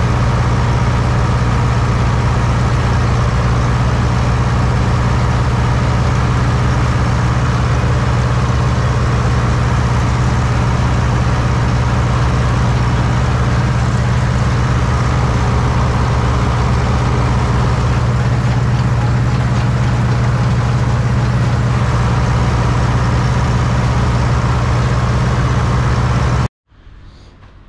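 IHC 844-S tractor's four-cylinder diesel engine running steadily with a strong low drone, working while cutting fresh grass. It stops abruptly near the end.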